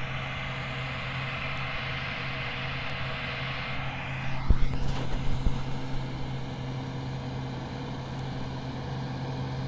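Tractor diesel engine and KMC peanut combine running steadily with a low hum. A rushing hiss eases off about four seconds in, and a few sharp knocks come around the middle.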